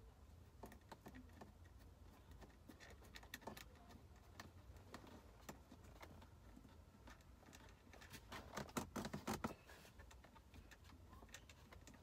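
Quiet clicks and light plastic-and-metal rattling from hands fitting a BMW E36 instrument cluster into the dashboard and securing it with a screw, with a short run of louder clicks and rattles about nine seconds in.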